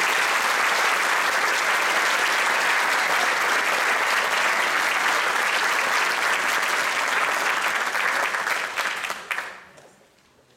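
Audience and band applauding: dense, steady clapping that dies away about nine seconds in.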